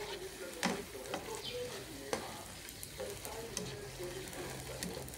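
String beans, pechay and tofu sizzling in a frying pan while a spatula stirs them, with a steady hiss and a few sharp clicks and scrapes of the spatula against the pan.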